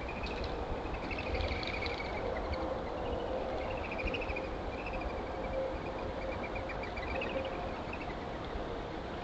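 An animal's rapid trilled chirping: strings of quick pulsed notes that waver up and down in pitch, over a steady low hiss and hum.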